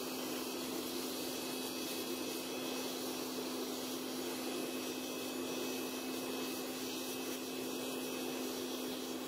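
Homemade gas-cylinder forge running: a steady rushing noise with a constant low hum.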